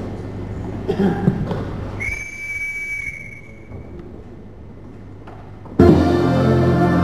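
A single long, steady whistle lasting about two seconds. About six seconds in, loud dance music starts suddenly.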